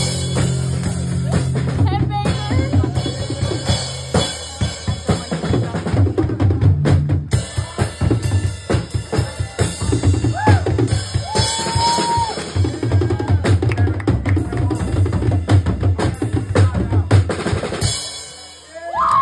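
Live rock band playing: a drum kit hammering out snare, bass drum and cymbal hits over electric guitar. The song stops about a second before the end.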